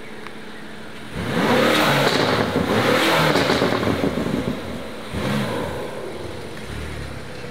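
A modified BMW accelerating hard away: the engine comes in loud about a second in, its pitch climbing and dropping a few times through quick gear changes, then fades, with one more short rev a few seconds later.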